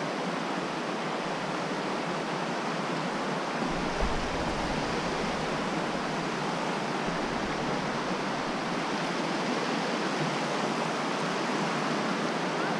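Creek water rushing steadily over rock shoals, a swollen, fast-running current too strong to wade across.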